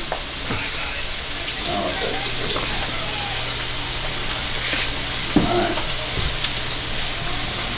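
Steady sizzling hiss of food frying in a pan, with a low hum setting in about two seconds in, and a few short chewing and mouth noises from a man eating a taco.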